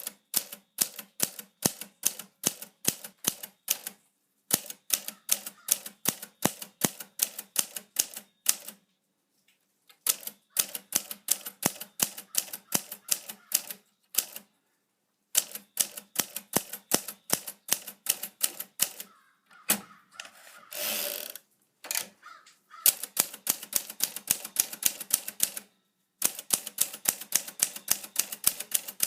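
Remington Suburbanite portable typewriter being typed on: runs of sharp key strikes, about five or six a second, broken by short pauses. There is one longer rasping sound about two-thirds of the way through.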